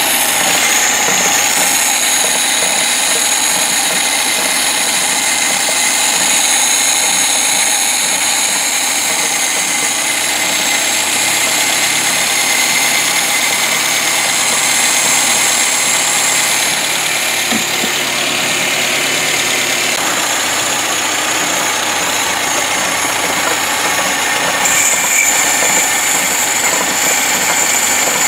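Vacuum cleaner motor switched on suddenly and running steadily: a loud rushing hiss with a high steady whine, which grows brighter near the end.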